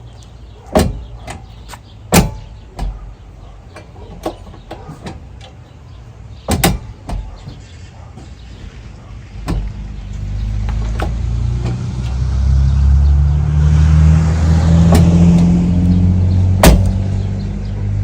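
Tube half door on a Jeep Cherokee XJ being swung open and shut, its latch clicking and the door knocking closed several times, as the newly installed door is checked. From about ten seconds in, a motor vehicle's engine grows loud and runs close by, with one more sharp knock near the end.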